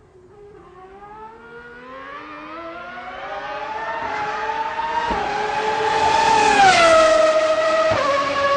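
V12 Formula One engine at high revs, growing steadily louder and rising in pitch. Its pitch falls about seven seconds in, with short breaks near five and eight seconds.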